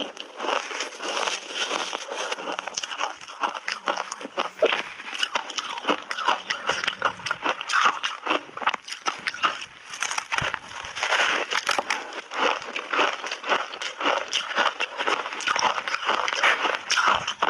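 Close-miked crunching and chewing of frozen ice: a dense, irregular run of sharp cracks and crackles as the ice breaks between the teeth.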